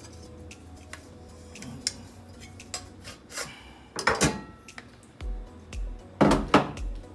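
Metal clicks and clatter of an old hard drive being handled and pulled out of a desktop PC's metal case. Background music with a low pulsing beat comes in about five seconds in.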